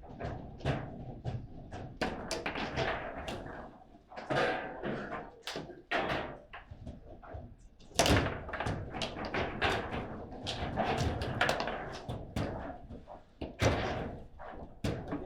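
Table football in play: a rapid, irregular series of hard knocks and clacks as the ball is struck by the rod-mounted players and hits the table walls, with the loudest hits about halfway through and again near the end.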